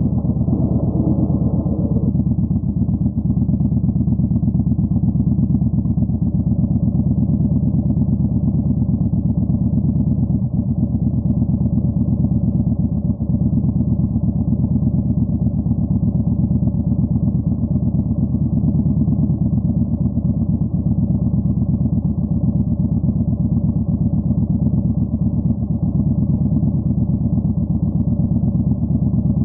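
Yamaha Bolt 950's air-cooled V-twin running through a Vance & Hines Twin Slash staggered exhaust, holding a steady engine speed with an even, continuous pulse.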